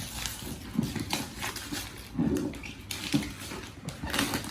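Gift wrapping paper and packaging being torn and rustled in irregular bursts while a tightly tied present is opened.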